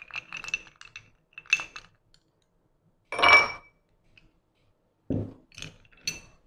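Metal teaspoon clinking and scraping against a small ceramic bowl in a run of quick light clinks, with one much louder clink about three seconds in and a few more clinks near the end.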